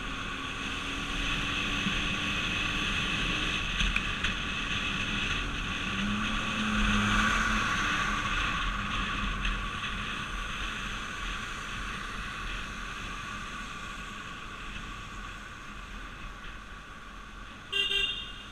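Steady road and tyre noise of a vehicle travelling at highway speed; the noise swells briefly about seven seconds in. Near the end a vehicle horn gives one short toot.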